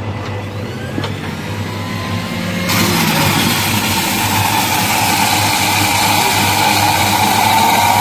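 Panasonic electric juicer's motor running, becoming a much louder, steady whirr about three seconds in as blended lemon pulp is poured into its feed chute.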